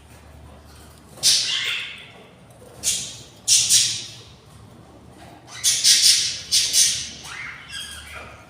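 Budgies squawking: a series of short, harsh, raspy squawks in bursts, packed closer together in the second half.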